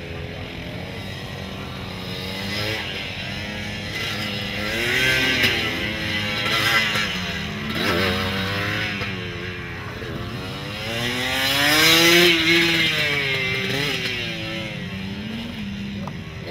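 Suzuki TS200R's two-stroke single-cylinder engine revving up and down again and again as the motorcycle accelerates and slows through tight turns. It is loudest in one long rising rev about twelve seconds in.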